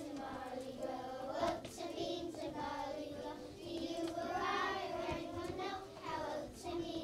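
A group of young children singing a song together, with a few claps.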